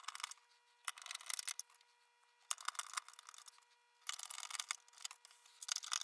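Phillips screwdriver driving screws into a projector's plastic base: short bouts of light clicking and scraping as each screw turns, with brief pauses between them.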